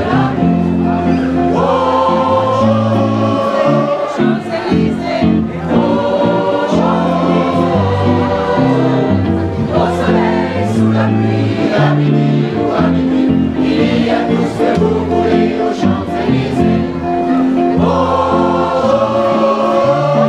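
Mixed choir of men and women singing a part-song, with electronic keyboard accompaniment holding steady low notes underneath.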